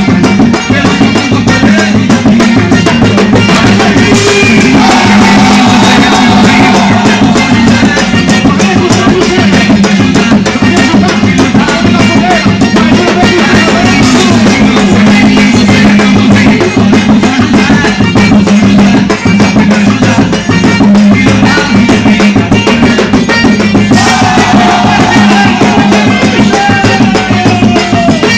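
Loud music with drums and a steady beat, accompanying a quadrilha junina dance performance.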